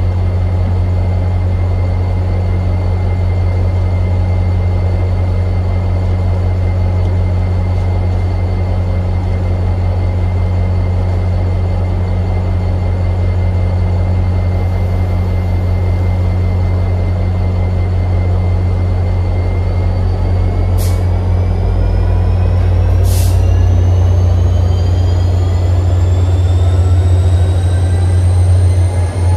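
MBTA commuter rail diesel locomotive idling with a steady low drone. About 20 seconds in it starts to pull away: two short air hisses, then a whine that keeps rising in pitch as the train accelerates.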